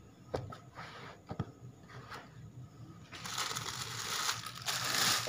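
Cloth rustling and crinkling as a cotton suit is gathered up off a table, with a few light knocks in the first two seconds; the rustling gets louder and denser from about three seconds in.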